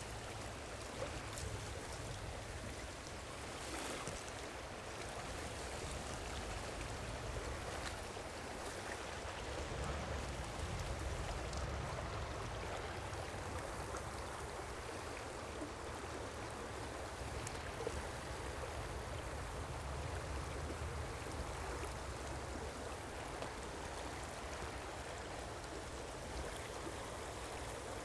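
Steady rush of a small mountain trout stream flowing over shallow riffles.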